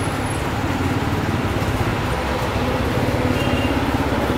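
Airbus A320's two jet engines running steadily as the airliner taxis, a constant rumble with a low hum.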